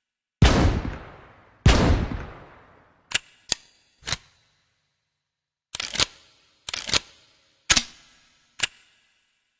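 Double-barrel shotgun fired twice, a little over a second apart, each blast trailing off in a long echo. These are followed by a string of sharp mechanical clicks and clacks from the gun's action being worked.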